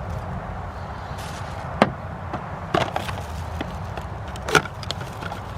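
Plastic oil filter housing and cartridge filter being handled: three sharp clicks and knocks about two, three and four and a half seconds in, with a few lighter ticks, over a steady low hum.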